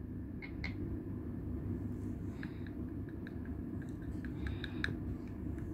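Steady low hum with faint light clicks scattered from about two seconds in, as red paint is dripped into a glass of white glue with a metal spoon resting against its rim.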